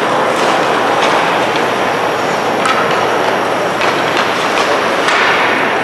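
Ice hockey in play: a steady scraping rush of skates on the ice, broken by several sharp clacks of sticks and puck.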